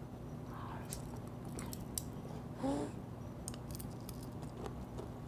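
A person chewing a mouthful of steamed shrimp, with scattered wet clicks and smacks of the mouth, and a brief hummed vocal sound about two and a half seconds in. A steady low hum runs underneath.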